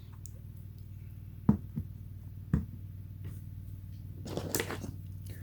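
Light handling sounds over a steady low electrical hum: two short clicks about a second apart, then a faint rustle of movement near the end.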